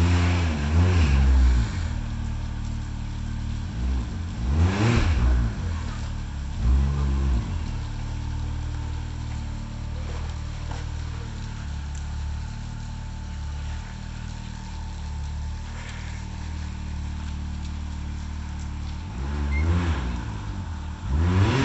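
Can-Am Maverick X3's turbocharged three-cylinder engine running at a low idle while it rock-crawls. There are short throttle blips near the start, at about five and seven seconds, and twice more near the end, with a steady idle in between.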